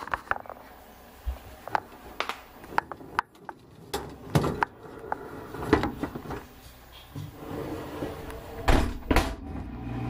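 Maytag dishwasher starting a light cycle, heard from inside the tub: scattered clicks and knocks, then a low hum building over the last few seconds as the wash runs up.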